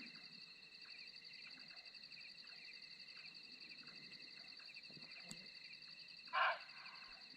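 Steady night chorus of insects trilling in fast pulses. About six seconds in, one short, loud call from an unknown wild animal cuts through.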